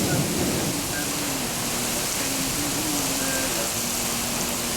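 Heavy rain pouring down steadily, a dense even hiss, with a brief low rumble swelling near the start.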